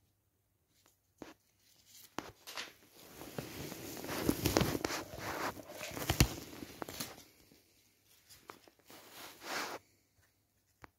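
Sheet of paper rustling and crinkling as it is handled, with a few light clicks at first, a long stretch of rough scraping rustle loudest near the middle, and a shorter burst of rustling near the end.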